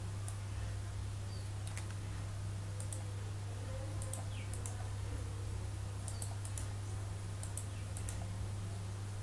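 Computer mouse buttons clicking: a few scattered clicks, then quicker runs of clicks in the second half, over a steady low electrical hum.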